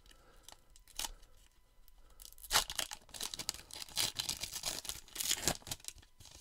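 Baseball trading cards and their pack wrapper being handled: a series of short scratchy rustles and crinkles as cards are slid and shuffled, the loudest about two and a half seconds in and again between four and five and a half seconds in.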